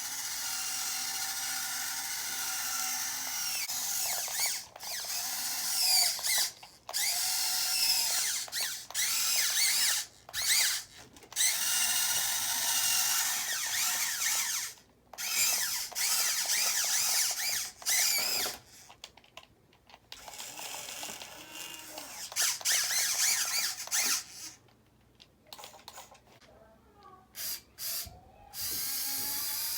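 Small electric motors and gearing of a radio-controlled construction model whining in stop-start bursts, the pitch gliding up and down as the machine is driven and worked.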